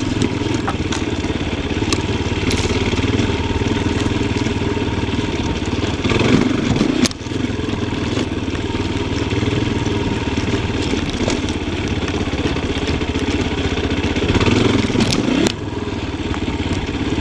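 Yamaha Tricker XG250's single-cylinder four-stroke engine running under varying throttle on a trail ride. It revs up twice, about six seconds in and again near the end, and drops off sharply each time the throttle is shut. Scattered knocks and clatter are heard through it.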